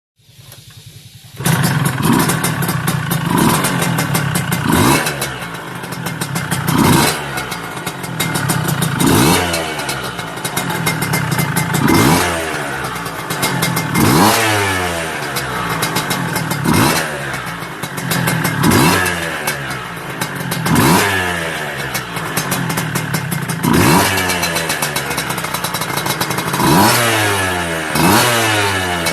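Yamaha F1ZR two-stroke single-cylinder engine running and being revved over and over. The throttle is blipped about every two seconds, each time a quick rise in pitch that falls back toward idle. It gets loud about a second and a half in.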